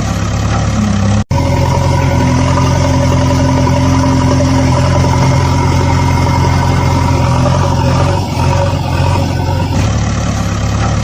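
An engine running steadily with a low, even hum, briefly cut off for an instant about a second in.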